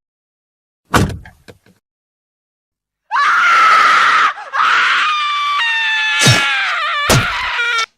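A woman screaming: one long, very high scream starting about three seconds in, breaking off briefly and then falling in pitch, with two hard hits landing during it near the end. A single thud comes about a second in. A staged sound effect of a woman under a knife attack.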